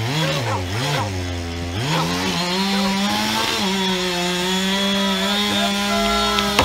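Two-stroke chainsaw felling a tall pine. It is revved up and down a few times, then held at steady full throttle through the cut. Near the end there is a low rumble and a sharp crack as the trunk begins to tip.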